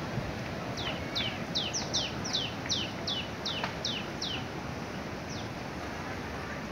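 A bird calling: a quick run of about a dozen high notes, each falling in pitch, around three a second, then one more a second later, over a steady rushing background.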